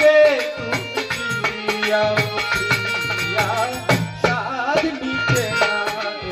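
Live folk song: a man singing through a microphone, accompanied by harmonium chords and rapid hand-drum strokes.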